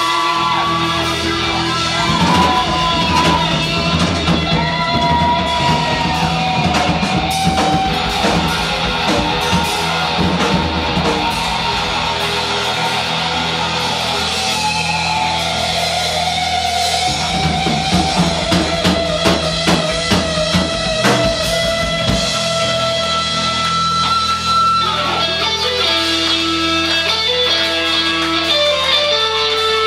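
Rock band playing live: electric guitar lead with bending notes over bass guitar and drum kit.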